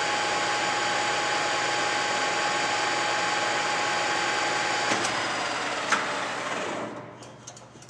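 DoAll LT-13 13 x 60 toolroom lathe running steadily under power, its gearhead giving a steady whine of several fixed tones. Two sharp clicks come about five and six seconds in, and near the end the running sound winds down and stops.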